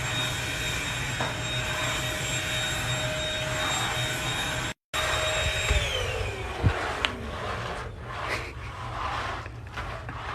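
An electric motor with rushing air runs steadily, its thin whine holding one pitch, then the whine falls in pitch as the motor winds down about six seconds in. The audio cuts out for an instant just before that.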